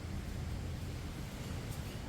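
Steady low rumble of outdoor background noise, with no single distinct sound standing out.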